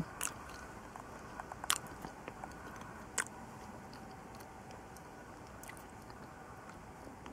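A person chewing banana: a few faint wet mouth clicks in the first three seconds, then little more.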